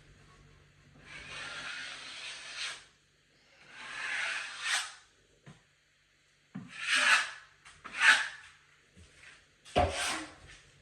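Drywall taping knife scraping and spreading joint compound over tape on drywall, in about five strokes: two longer ones near the start and shorter, sharper ones later.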